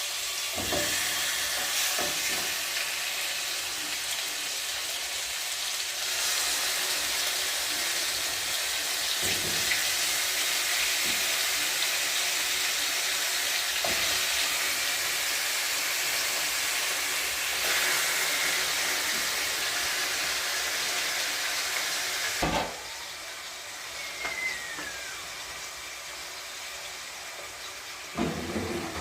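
Chicken thighs sizzling in hot oil in a frying pan, a dense steady hiss. About 22 seconds in there is a knock, and after it the sizzle is noticeably quieter.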